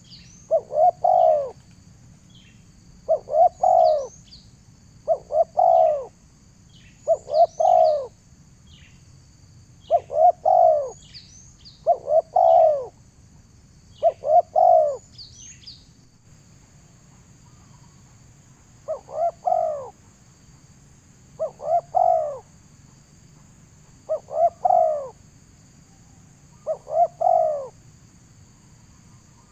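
A bird calling in low, arched notes grouped two or three to a phrase, with a phrase about every two seconds and a gap of a few seconds partway through. Thin high chirps from smaller birds come over the first half, and a steady high insect drone runs underneath.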